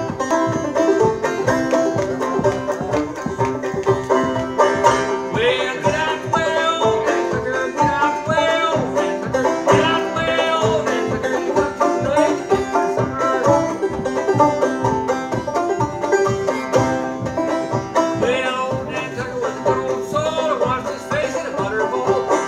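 Five-string resonator banjo played solo with a fast, steady picked rhythm in a bluegrass/old-time style. A man's voice sings along from about five seconds in.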